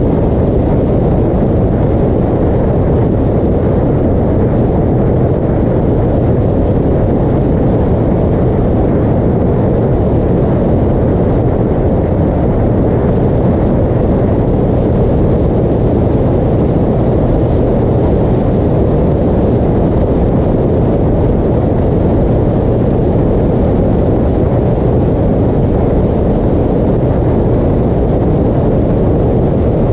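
Motorcycle cruising at steady highway speed: heavy wind rush over the microphone with the engine's steady drone underneath, unchanging throughout.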